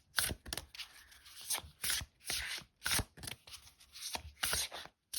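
Oracle cards being shuffled by hand: a run of quick papery slaps and rustles, about three a second.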